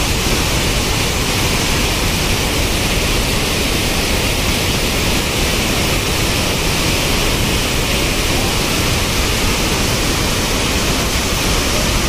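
Loud, steady rush of water pouring over a dam's overflow as a small monsoon waterfall.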